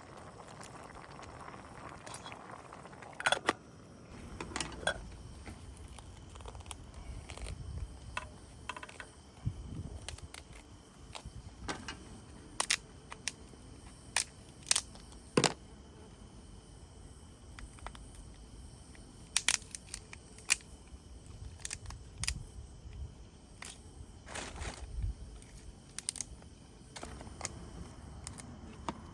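Irregular sharp clicks and knocks of small hard objects being handled, a dozen or so spread unevenly, over a faint steady background hiss.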